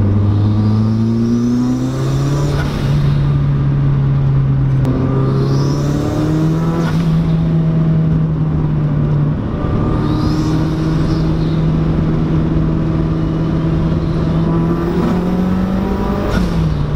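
Turbocharged Mazda Miata four-cylinder engine under full throttle, heard from inside the cabin, pulling through the rev range in several turbo spool (lag) tests. The engine note climbs steadily through each pull, with a few abrupt changes where the pulls break off.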